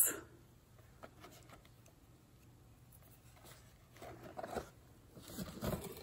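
Faint handling of cosmetic packaging as an eyeliner pencil in its cardboard box is taken out and held up, with two short rustles in the second half.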